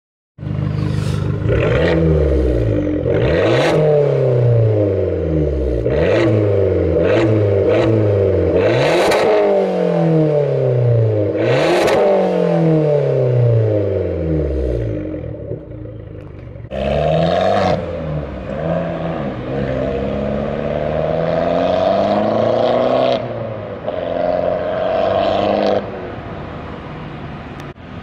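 Abarth 500's turbocharged 1.4-litre four-cylinder revved again and again through a straight-piped, back-box-delete exhaust. Each rev climbs and falls away, with sharp pops and bangs near many of the peaks in the first half, and the later revs are held longer.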